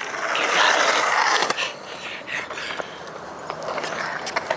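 Skateboard wheels rolling on concrete, a loud rush in the first second and a half, followed by a scatter of sharp clicks and knocks from the board.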